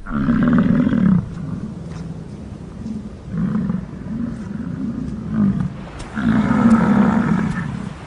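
Bison bull bellowing in the rut: a series of deep, drawn-out roars, the longest at the start and another about six seconds in, with shorter pulsing bellows between.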